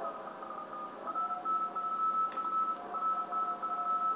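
Morse code (CW) on the 80-metre amateur band, heard through a Yaesu FTdx1200 transceiver. Two stations are keying at once, one at a higher pitch and one at a lower pitch, over band hiss, because the receive filter is set to its wide 2.4 kHz bandwidth.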